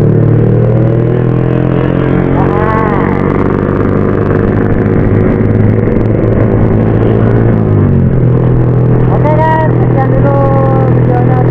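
Motorcycle engine running steadily under way. Its pitch drops about eight seconds in as the bike slows, then holds steady at the lower pitch.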